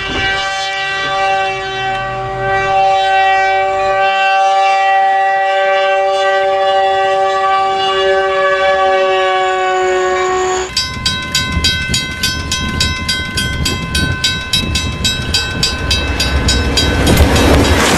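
Train horn held in one long, steady chord for about ten seconds. Then, after a cut, a level-crossing warning bell rings in rapid, evenly spaced strikes, with a rush of noise from an approaching train swelling near the end.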